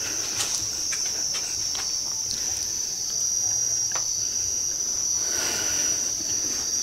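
Steady high-pitched chirring of crickets, with a few faint taps and knocks over it.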